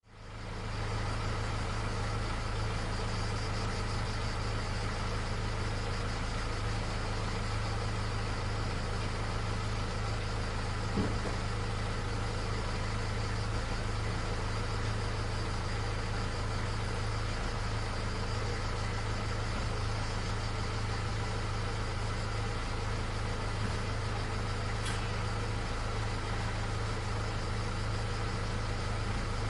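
A stopped car's engine idling with a steady low hum, with a faint click about eleven seconds in.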